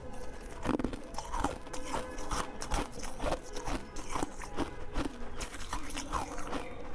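Close-miked chewing and biting of purple jelly: repeated wet, crunchy mouth sounds, about two a second.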